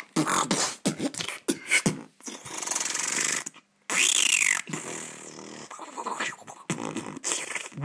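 Beatboxed sound effects made with the mouth. Quick percussive clicks and hits come first, then a long hiss. After a short gap comes a loud whooshing sweep whose pitch rises and falls, then more clicks.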